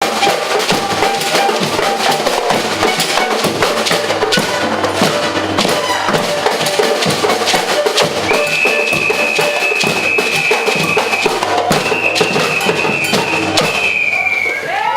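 Percussion group playing a dense drum rhythm, with two long, high, steady whistle blasts in the second half; the playing stops just before the end.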